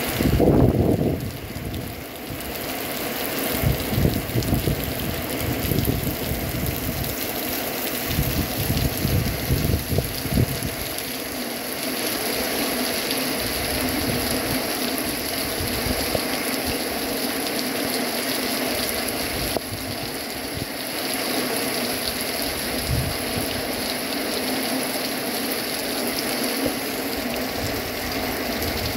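Heavy rain from Hurricane Julia falling steadily, with bursts of wind buffeting the microphone in the first ten seconds.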